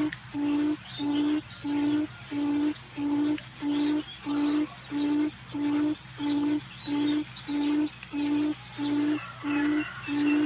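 Forest quail lure call: a low hooting note repeated evenly about twice a second, each note short and steady in pitch. Faint chirps of other birds sound higher up.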